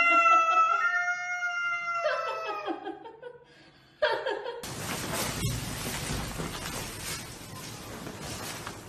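A cat yowling at another cat: one long, drawn-out cry, then a shorter falling one about two seconds in. About four and a half seconds in the sound switches to a steady, noisy rustle.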